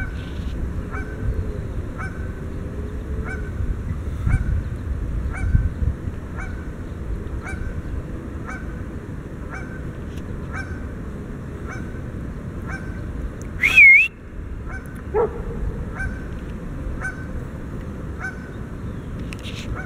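Canada goose honking, a short call repeated about once a second, with one louder call that rises and falls in pitch about two-thirds of the way through. A steady low rumble of wind on the microphone runs underneath.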